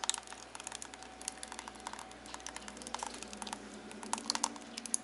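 Thick pumpkin pie filling pouring from a pot into a glass pie plate, heard as a run of quick, irregular light clicks and taps with no steady rhythm.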